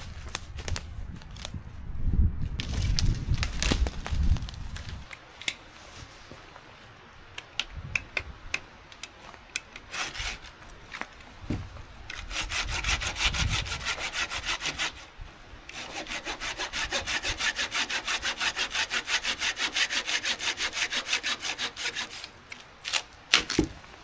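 Footsteps and rustling in dry leaf litter, then a folding hand saw cutting through a small firewood log: a short run of quick, regular push-pull strokes, a pause, then a longer run at about four strokes a second. A few sharp knocks of wood follow near the end.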